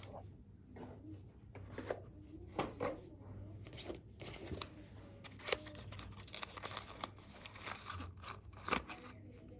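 Handling and tearing open a small cardboard product box: scattered rustles, short paper tears and small clicks as a battery is slid out of the packaging.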